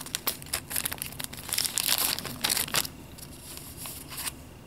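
A thin clear plastic packaging bag crinkling as it is handled, with paper sheets rustling. Dense short crackles come through the first three seconds, then it quiets to a few rustles.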